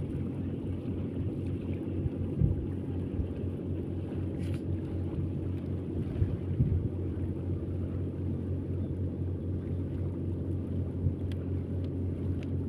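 An engine running steadily with a low, even drone, with a couple of brief low knocks about two and a half seconds and six and a half seconds in.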